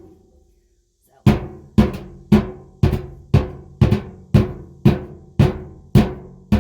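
Rock wrapped in a bandana hammering the bottom of a galvanized tin tub, denting the metal down around the drain hole. After a pause of about a second, there are about eleven evenly paced blows, roughly two a second, each with a short metallic ring.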